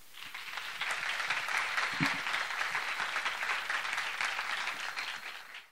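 Audience applauding. It builds up within the first second, holds steady, and cuts off abruptly near the end.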